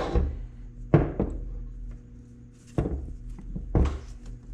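Metal engine parts and tools clunking as they are handled and set down on a workbench: four separate knocks, the loudest about a second in and near the end, over a steady low hum.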